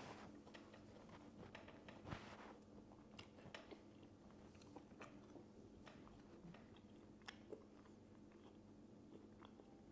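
Faint close-up chewing of food, with soft mouth clicks and the odd crunch scattered through.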